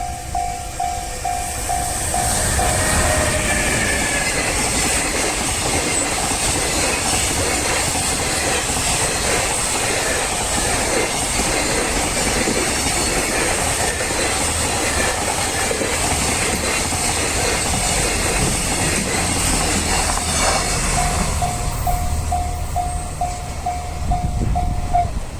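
A long freight train hauled by a JR Freight EF210 electric locomotive passes over a level crossing for nearly twenty seconds, with wagon wheels clattering over the rail joints. The crossing's electronic bell rings in rapid, evenly spaced dings at the start. The train noise drowns the bell until it passes, and the bell then rings on again and stops shortly before the end.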